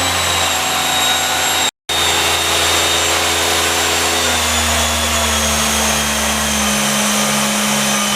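Haas ST-10Y CNC lathe spindle running at high speed, a steady high whine over a low machine hum, the whine drifting slowly lower in pitch. The sound cuts out for an instant about two seconds in.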